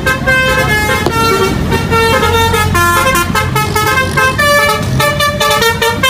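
Tour bus's Basuri 'telolet' multi-tone air horn playing a quick tune of short notes that keep changing pitch, several horn tones sounding together.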